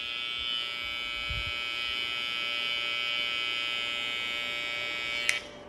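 Cordless hair trimmer running with its blade pressed to a man's lips, giving a steady high-pitched buzz that cuts off with a click about five seconds in.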